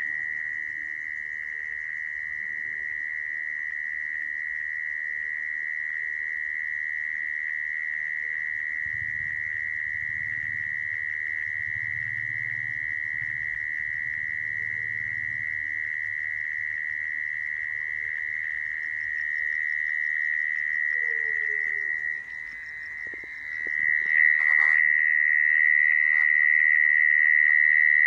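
Mole cricket singing: one continuous, steady trill. It dips briefly a little over twenty seconds in, then comes back louder, with a single click just after.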